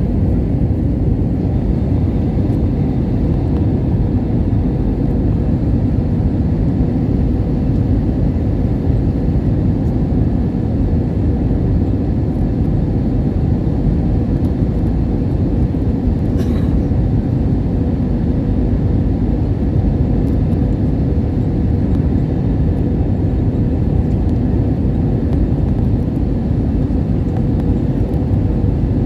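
Airliner cabin noise heard from inside the cabin: a steady low rumble of engines and rushing air with a faint steady hum.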